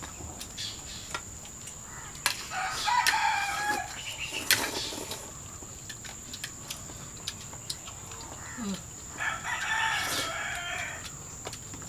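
A rooster crowing twice, once about two and a half seconds in and again about nine seconds in, each crow lasting about a second and a half. Light sharp clicks are scattered throughout.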